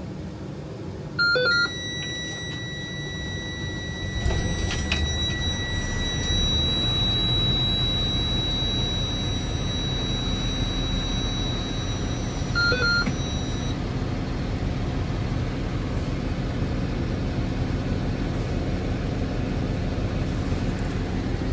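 School bus being started from the driver's seat. A short dashboard beep about a second in is followed by a steady high-pitched warning tone. About four seconds in the engine cranks and catches, and it settles into a steady idle rumble. The warning tone stops after about 13 seconds, just after a second beep.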